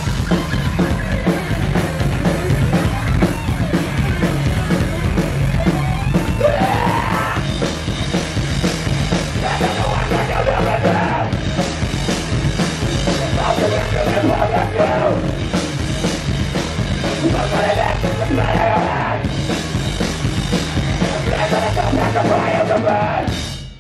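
Hardcore punk band playing live: bass and fast drums with crashing cymbals, and a vocalist yelling in repeated bursts. The song stops abruptly near the end.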